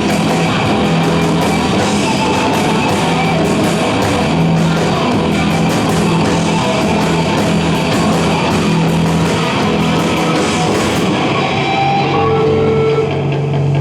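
Rock band playing loud, with electric guitars and drums with cymbal hits; the drums stop about eleven seconds in, leaving the guitars ringing.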